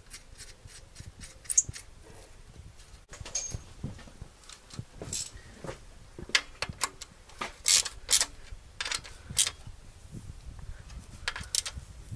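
Spanner and nuts clinking on metal engine parts as the nuts are put back on and tightened down on an EGR blanking plate: irregular sharp clicks and clinks, thicker and louder in the second half.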